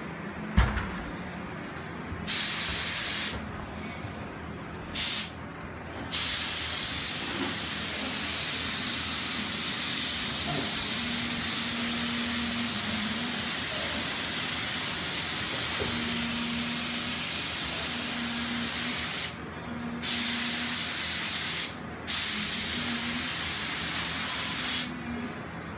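Air spray gun hissing as it sprays clear top coat onto oak kitchen cabinets, triggered on and off: a short burst about two seconds in, a long steady spray of about thirteen seconds, then two more bursts near the end. A low steady hum runs underneath, and there is a sharp knock just after the start.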